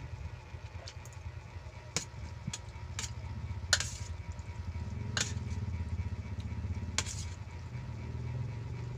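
Someone eating noodles with a fork from a metal tray: about six sharp clicks and taps of the fork against the tray while eating, over a steady low hum.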